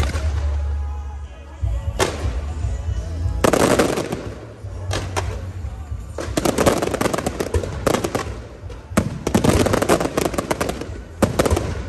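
Fireworks and firecrackers going off: irregular sharp bangs and runs of rapid crackling, densest in the second half.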